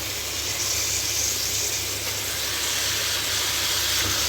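Raw chicken pieces sizzling in hot oil and fried masala in a pan: a steady frying hiss that grows brighter for a second or two shortly after the start.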